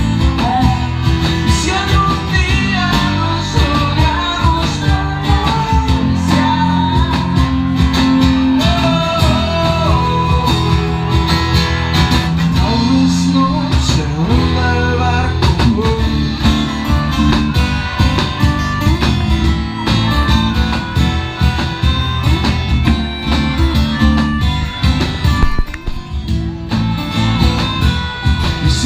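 Live band music in an instrumental passage, with a guitar playing a moving melodic lead over a steady accompaniment.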